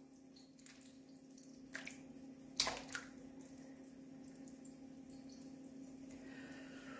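Canned tomatoes sliding out of a tin into a bowl of minced meat: a few short wet plops, the loudest about two and a half seconds in, over a faint steady hum.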